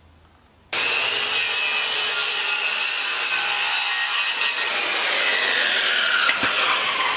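Handheld corded power tool cutting into a red cedar board. It starts suddenly less than a second in and runs loud and steady, its whine slowly dropping in pitch over the last few seconds as it works through the wood.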